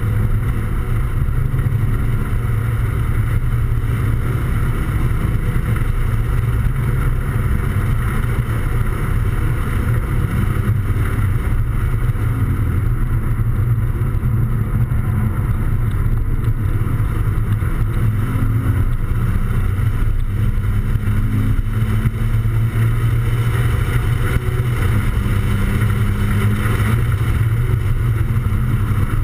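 Toyota 86 / Scion FR-S heard from inside the cabin at track speed: a steady, heavy low rumble of wind and road noise, with the car's 2.0-litre flat-four engine running underneath.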